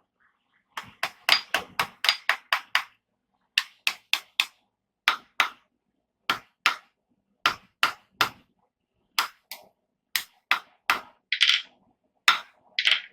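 Blacksmith's hand hammer striking steel on an anvil, sharp ringing blows in irregular groups, a quick run of them early and then pairs and threes, with two longer rings near the end.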